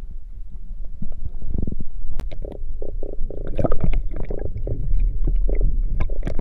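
Muffled underwater sound of seawater around a submerged camera microphone: a heavy low rumble and gurgling, with a run of irregular knocks and crackles from about two seconds in.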